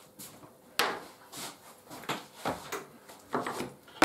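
Scattered knocks and clunks of a drawer and tools being handled while rummaging for gloves and a tool, the sharpest knock about a second in.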